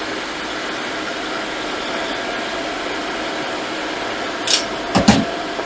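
Hot air rework station blowing steadily on a MacBook Air logic board, with a faint steady fan hum. Near the end come a brief hiss and two sharp knocks.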